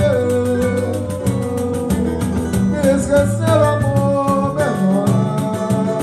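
Live samba: cavaquinho strumming, pandeiro jingles and a hand drum keep a steady beat, with a voice holding notes between sung lines.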